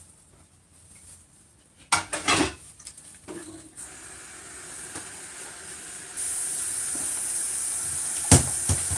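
A serving spoon clinks and knocks against crockery a few times about two seconds in. Then a steady hiss starts abruptly about six seconds in, with a sharp knock near the end.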